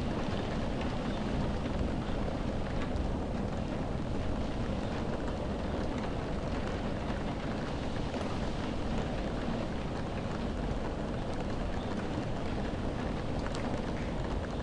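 Heavy rainstorm with wind heard from indoors: raindrops hitting window glass over a steady low rumble.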